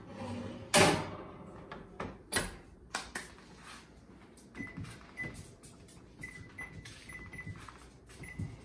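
A casserole dish goes into the oven and the oven door shuts with a loud clunk about a second in, followed by a few lighter knocks. Then a run of short, high, single-pitch beeps from the over-the-range microwave's keypad as its 45-minute timer is punched in.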